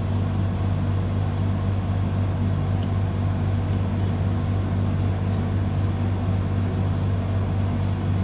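A steady low hum, with faint quick scratching strokes of a coloured pencil shading on paper from about three and a half seconds in, two or three strokes a second.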